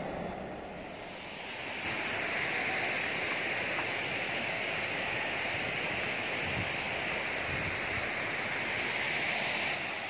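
Waterfall's falling water rushing steadily, growing louder about two seconds in and then holding even.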